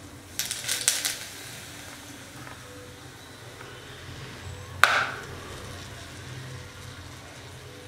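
Hot oil in an iron tempering ladle crackling as dried fenugreek leaves (kasuri methi) are dropped in, then sizzling softly. A single sharp knock rings out about five seconds in.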